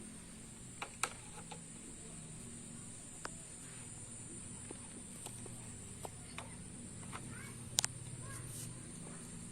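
Faint steady high-pitched insect buzz with a few scattered light taps and clicks.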